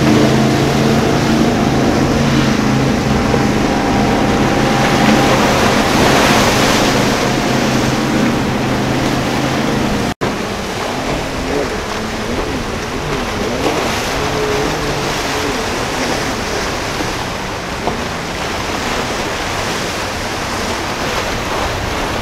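Speedboat engines running hard as the boats cross choppy water, over wind on the microphone and breaking surf. After a brief dropout about ten seconds in, the engine note wavers up and down.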